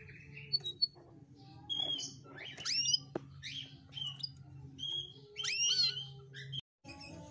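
Hen canary calling: short chirps and quick upward-sweeping notes in loose groups, with no rolling song, over a low steady hum.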